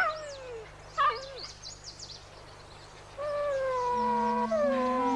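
A dog whimpers twice, each cry short and falling in pitch, about a second apart, with faint bird chirps. Soft flute-led music comes in about three seconds in.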